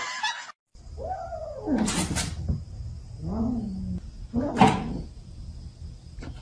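A kitten meowing: one long falling meow about a second in and a shorter, lower one in the middle, with a couple of sharp knocks, the loudest about two-thirds of the way through.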